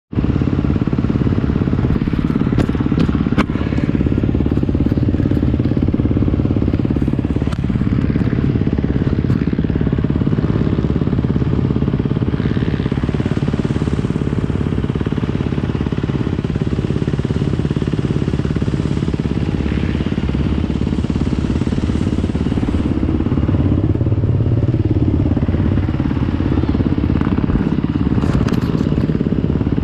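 Motocross bike's single-cylinder engine idling steadily, close by, with a few sharp clicks in the first few seconds.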